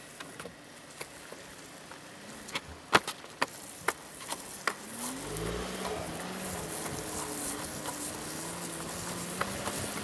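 A series of sharp clicks and taps from a longboard's push-off on wet asphalt. About halfway through, a vehicle engine rises in pitch and then runs steadily as the camera vehicle follows, with a hiss of wheels and tyres on the wet road.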